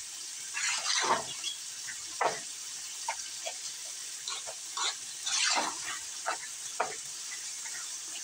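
A utensil stirring sticky cooked elbow macaroni and shredded cheddar cheese in a nonstick pot, in about ten irregular wet stirring strokes.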